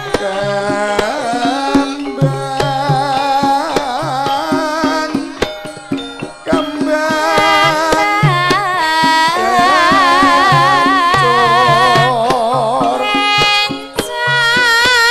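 Javanese gamelan music for a tayub dance, played loud over a sound system: kendang hand-drum strokes repeat in a steady pattern under a wavering, vibrato-laden sung melody and sustained metallophone tones.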